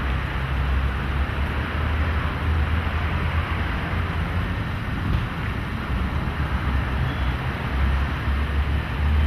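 Wind buffeting the microphone: an uneven low rumble that swells and eases, over a steady hiss.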